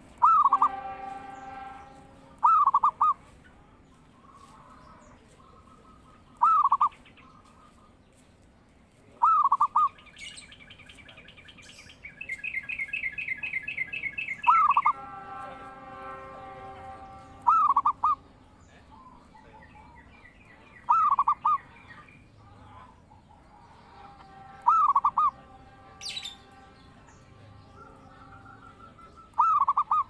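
Zebra dove (perkutut) cooing in short, loud phrases, about nine of them spaced roughly three seconds apart. Another bird gives a rapid, higher trill for a few seconds around the middle.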